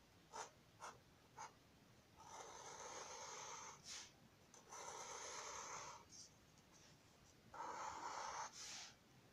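Black marker pen drawing on paper: a few light taps of the tip, then three long scratchy strokes of a second or more each as straight lines are drawn.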